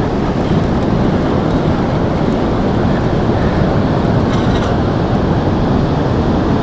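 Steady wind noise on the microphone over ocean surf at the beach.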